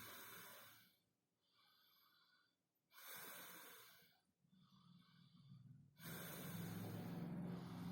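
Slow, even breaths drawn in and blown out through one nostril: Bhastrika pranayama at the slow beginner's pace, about five soft breaths, the last one longer and louder.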